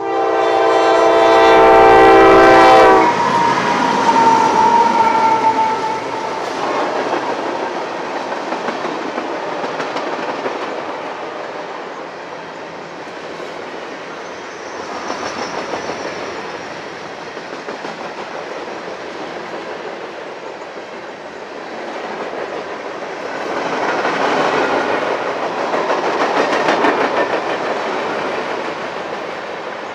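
Train horn blown loudly for about three seconds at the start, followed by a single tone sliding down in pitch. Then the train rolls past with the steady rumble and clickety-clack of its wheels, which swells louder for a few seconds near the end.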